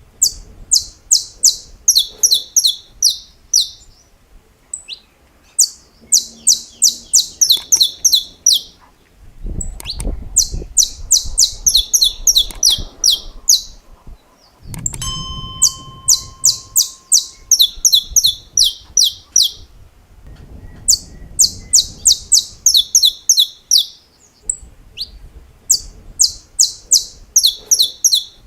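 Saffron finch (canário-da-terra) singing: repeated phrases of rapid, sharp snapping notes, the 'estalos' this bird is prized for, each phrase about three seconds long and coming every few seconds.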